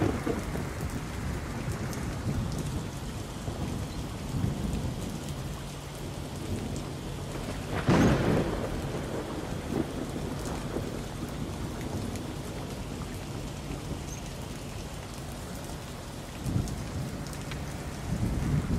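Thunderstorm: steady rain with low rolling thunder, and one sharp, loud thunderclap about eight seconds in.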